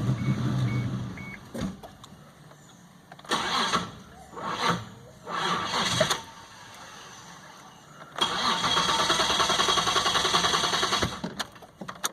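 2001 Isuzu Trooper engine being cranked by the starter in several short tries, then one steady pulsing crank of about three seconds near the end that stops without the engine settling into an idle. This is the hard start that the truck shows only sometimes.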